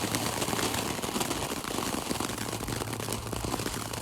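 Small ground firework burning, giving a rapid, continuous crackle at a steady level.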